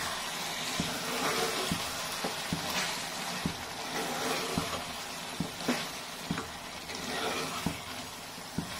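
A steel spoon stirring thick, simmering chicken curry in a metal pressure-cooker pot, with the curry sizzling steadily and the spoon knocking and scraping against the pot many times.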